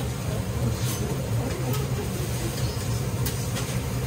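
Steady low hum of a restaurant teppan griddle station and its kitchen ventilation, with a faint sizzle. Over it come a few light metal clicks of a spatula on the steel griddle plate.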